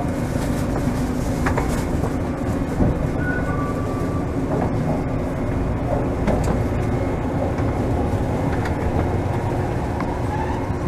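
Toden Arakawa Line streetcar running along its track, heard from inside at the driver's cab: a steady rumble of wheels on rail with a low, even hum and a few light clicks.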